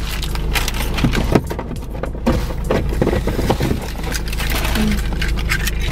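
Plastic snack packet being handled and worked open: irregular crinkling and crackling rustles over a steady low hum.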